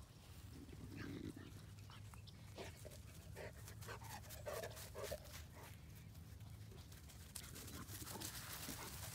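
A dog panting, with a few short sounds from it, over a steady low hum.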